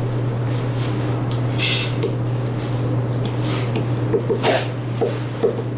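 Boning knife cutting and scraping cartilage from a piece of beef shoulder on a plastic cutting board, giving light clicks and scrapes, with a short sharp rasp about a second and a half in. A steady low hum runs underneath throughout.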